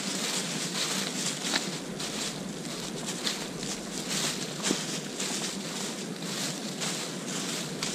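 Footsteps crunching through dry leaf litter as people walk, about two steps a second.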